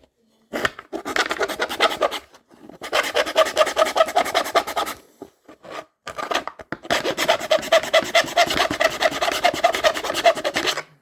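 A hand file rasping at the edge of a cut-out hole in a carrying case, in fast back-and-forth strokes. It comes in three spells, with a short break about two seconds in and a longer one around the middle.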